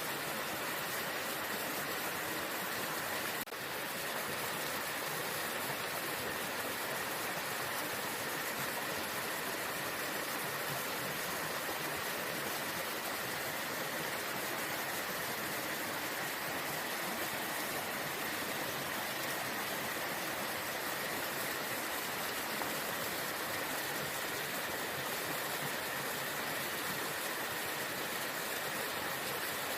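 Waterfall rushing in a steady, even roar of falling water. A single brief click with a momentary drop in level about three and a half seconds in.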